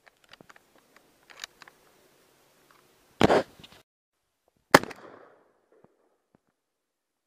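Two loud shotgun shots about a second and a half apart, each with a short echo, preceded by faint handling clicks and rustles.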